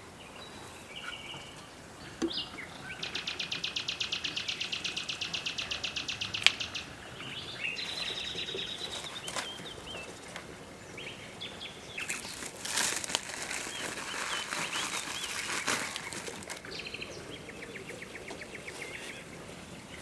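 Outdoor birdsong: a rapid high buzzing trill of about a dozen pulses a second lasting a few seconds, other short chirps, and a second fainter trill near the end. A stretch of rustling noise comes around the middle.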